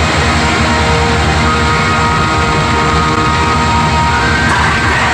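Loud rock music with distorted electric guitar and a driving beat, with long held notes in the middle, off a 1980s radio recording taped on cassette.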